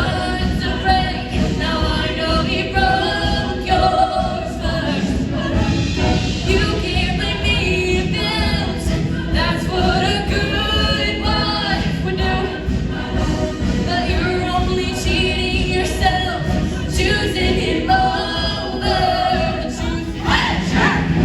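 A show choir singing a song in parts, many voices together over musical accompaniment.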